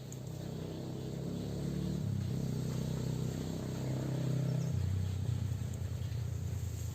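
A low engine running and growing louder, its pitch shifting in steps, with a rapid low pulsing in the second half.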